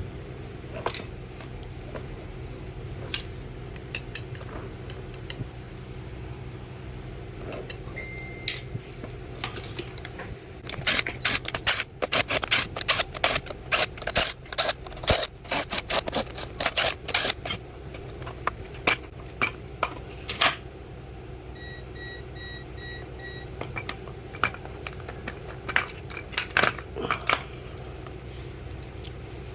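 Small metal parts and tools clinking and tapping on a workbench, with a dense, irregular run of clicks in the middle. Under it runs a steady low hum, and there are short electronic beeps twice.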